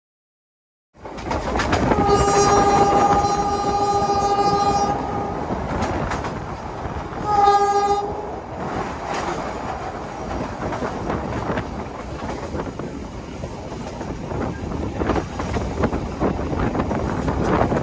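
Passenger train running over the rails, heard from inside its toilet, with steady wheel-and-rail noise and clicking from the track joints. The locomotive's horn sounds one long blast of about three seconds, then a short blast a couple of seconds later.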